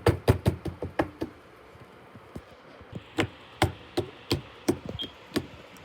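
A series of sharp knocks and taps: a quick cluster in the first second or so, then, after a pause, a slower run of single knocks about two to three a second.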